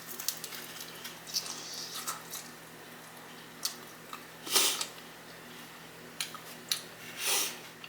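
Close-miked eating sounds from chewing chicken wings: small wet clicks and mouth smacks, with two louder short noisy sounds, one about halfway and one near the end.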